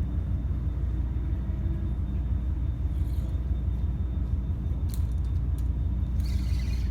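Wind buffeting the microphone: a steady low rumble, with a few faint clicks about five seconds in.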